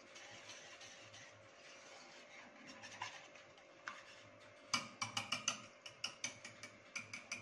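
Wire whisk beating batter in a stainless steel bowl: faint stirring at first, then, about two-thirds of the way in, a rapid run of sharp clinks, about five a second, as the whisk strikes the bowl's sides.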